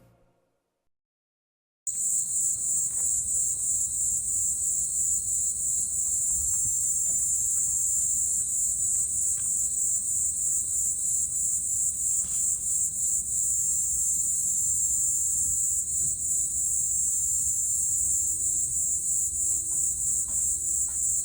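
Chorus of crickets chirping steadily, a high-pitched trill with a fast pulsing pattern. It starts about two seconds in after a stretch of silence, with a few faint ticks beneath.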